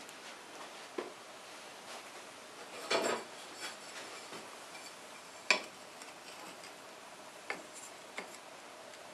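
Ceramic tile pieces clinking and tapping against each other and the tiled surface as they are handled and fitted into place: a few separate sharp clicks and a short clatter about three seconds in, the loudest click a little past halfway.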